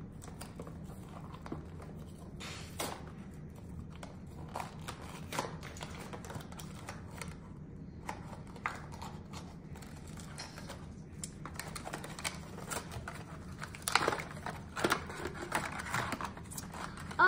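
Toy packaging being opened by hand: irregular crinkling, clicking and tearing of plastic wrap and cardboard, busier and louder near the end.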